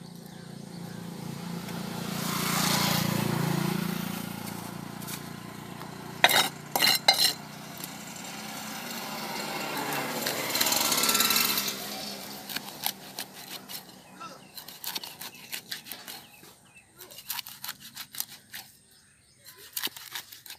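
Cleaver chopping fish on a wooden block: a few loud sharp strikes about a third of the way in, then a run of quicker, lighter chops and cuts through the second half. Behind, a motor swells and fades twice, like vehicles passing.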